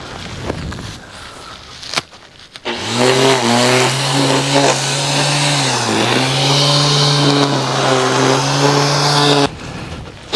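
String trimmer (weed eater) running at a steady high speed. Its pitch sags briefly about halfway through, and it stops suddenly near the end.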